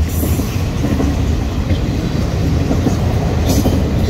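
Freight train of autorack cars rolling past at close range: a steady, loud rumble of steel wheels on the rails. A brief high hiss comes about three and a half seconds in.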